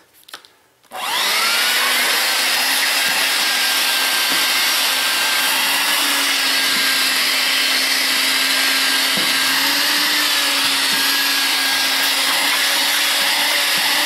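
Electrolux The Boss 100-watt corded handheld vacuum cleaner switched on about a second in: its motor spins up with a brief rising whine and then runs steadily with a loud rushing hiss.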